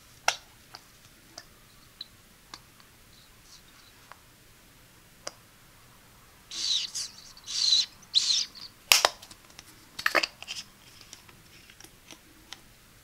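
Plastic flip-top cap of a gel tube being handled close to the microphone: a sharp click near the start, scattered light ticks, a couple of seconds of plastic scraping and rubbing, then two loud snaps of the lid.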